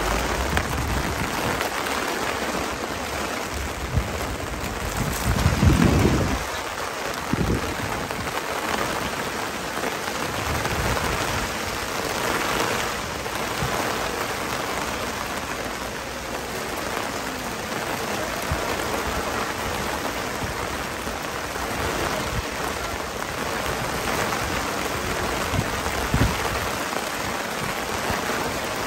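Steady rain hissing down on wet paving and a market-stall canopy overhead, with a few low thumps, the loudest about six seconds in.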